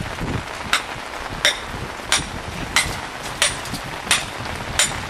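Stonemason's rock hammer striking the edge of a sandstone block, seven sharp blows at an even pace of about three every two seconds, chipping off stone to shape it.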